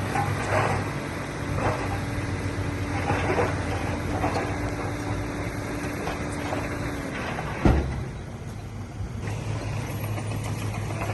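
Heavy earthmoving machine's diesel engine running steadily, with scattered clanks and one sharp loud knock about three-quarters of the way through.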